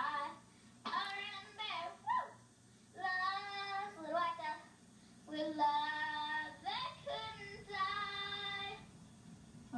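A young girl singing on her own, long held notes of a second or more, each with a short break between them and no clear words.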